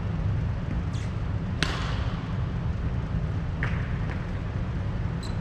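Badminton rally: four sharp smacks of racket strings hitting the shuttlecock, the loudest about a second and a half in, over a steady low rumble.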